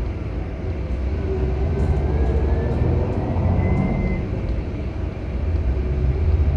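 Scania K360 coach's diesel engine running with a steady low rumble, and a faint whine that climbs in pitch midway.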